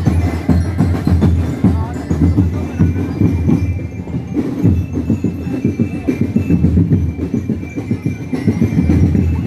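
Ati-Atihan festival drum band playing a fast, steady, pounding beat.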